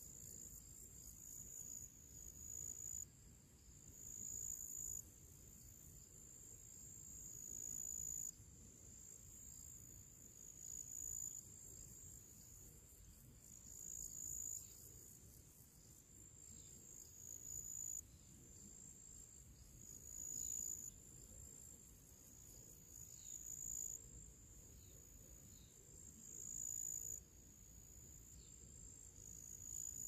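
Crickets and other insects chirping in a faint, high, continuous trill that swells and then cuts off abruptly in phrases about every three seconds.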